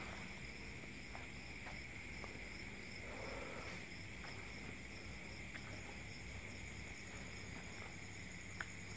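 Faint, steady chorus of night insects, a continuous high trill, with a few soft clicks, a brief soft rustle about three seconds in, and a sharper tick near the end.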